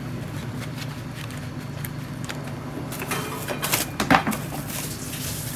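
Plastic cling film crinkling and rustling as hands press it down over a plastic food tub, in several quick bursts from about three seconds in, over a steady low hum.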